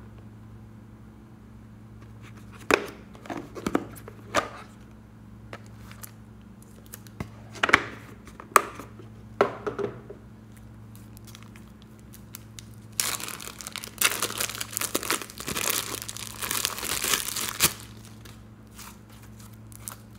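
Plastic handling sounds: a few sharp clicks and knocks, then several seconds of dense crinkling as a plastic zip-lock bag of glitter slime is opened and the slime pulled out, over a faint steady low hum.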